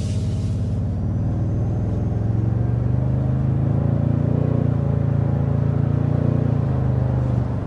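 Toyota Tundra's twin-turbo V6 hybrid powertrain heard from inside the cabin, pulling steadily under acceleration with a low hum that slowly rises in pitch. Near the end the note drops away as the 10-speed automatic shifts up smoothly.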